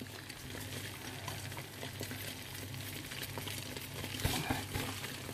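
Beaten eggs sizzling in hot oil in a frying pan while they are stirred to scramble them, with a few soft knocks of the utensil against the pan about four seconds in.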